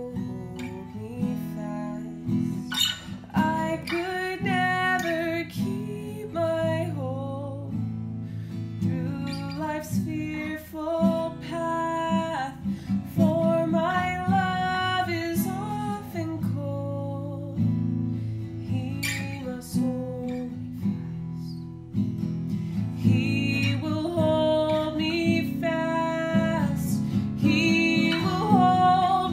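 A woman singing a slow hymn, accompanying herself on a strummed Takamine steel-string acoustic guitar; the guitar carries on alone in the short gaps between sung lines.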